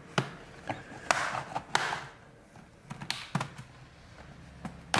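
Plastic retaining clips of an Acer Aspire 3 laptop's bottom cover snapping loose as a pry tool is worked around its edge: a series of sharp, irregularly spaced clicks, about seven in all.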